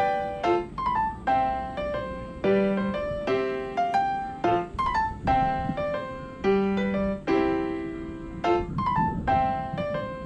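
Background piano music: single notes and chords in a light, steady rhythm.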